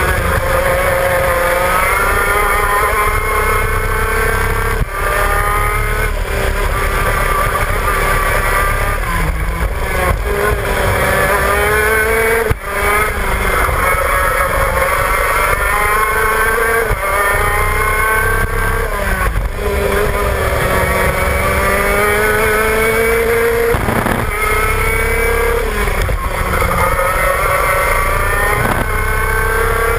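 Shifter kart's two-stroke engine at racing speed, heard on board: its pitch climbs repeatedly as it revs through the gears and drops sharply at each shift or lift for a corner.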